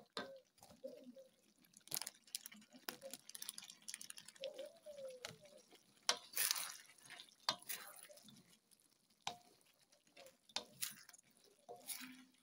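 Spatula stirring chicken pieces in sauce in a granite-coated wok, with irregular scrapes and taps against the pan.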